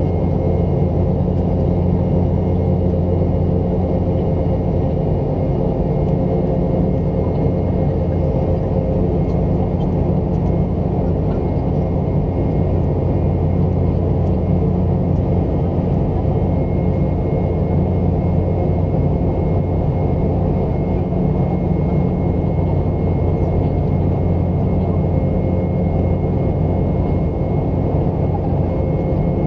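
Boeing 717 in flight: a steady low rumble from its two BMW Rolls-Royce BR715 turbofan engines and the airflow, with a constant hum and a faint high whine running through it.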